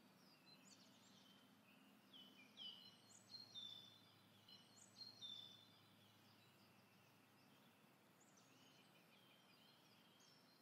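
Faint small-bird chirps and twitters, short calls that dip in pitch, most of them in a cluster through the middle, over a faint low hum.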